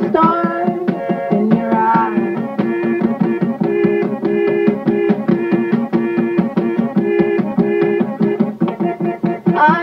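Instrumental background music with a quick, steady percussive beat of about four strokes a second under a repeating melody, with a sliding note near the end.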